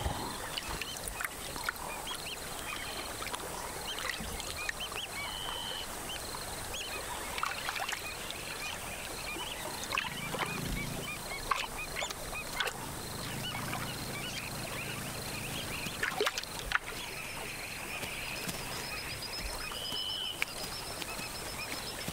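Outdoor natural ambience of many wild birds chirping and calling, with short high trills that repeat now and then. A low rumble comes in briefly about ten seconds in and again a few seconds later.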